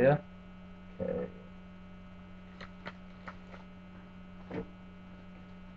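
Steady electrical mains hum on a webcam microphone, with a short louder sound about a second in and a few faint clicks from handling trading-card packs.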